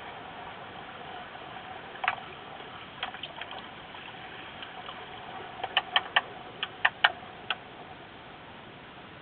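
Heard underwater: a steady hiss of pool water with sharp clicks of underwater hockey sticks striking the puck and the tiled pool floor, a few scattered ones early and a quick run of about seven in the second half.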